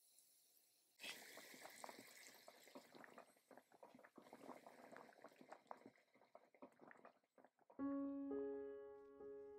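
Pot of oden broth simmering, with faint, irregular bubbling and small pops, starting about a second in. Near the end a few piano notes come in.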